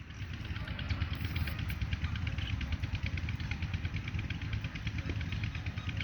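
A flock of common mynas chattering with rapid, dense chips and short calls, over a steady low rumble.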